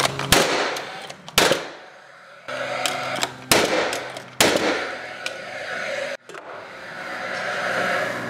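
Paslode cordless gas nailer firing nails into framing lumber: four sharp shots within the first five seconds or so, with the tool's fan whirring between and after them.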